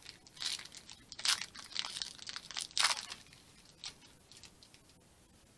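Crinkling and tearing of a foil Pokémon booster pack wrapper being handled, in several short crackling bursts over the first three seconds, then a few faint ticks.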